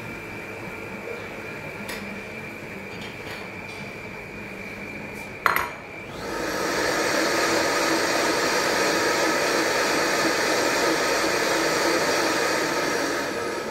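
Countertop blender blending a thin liquid dressing. It runs at a lower, steady hum with a thin high whine, gives a sharp click about five and a half seconds in, then spins up to a much louder high-speed whir. It holds there for several seconds and winds down near the end.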